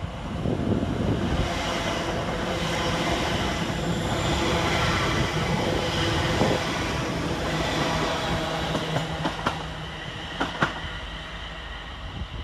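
West Midlands Railway Class 350 Desiro electric multiple unit passing through the station without stopping: a loud rush of wheel and rail noise with a steady low hum, easing off after about nine seconds, with a few sharp clicks near the end.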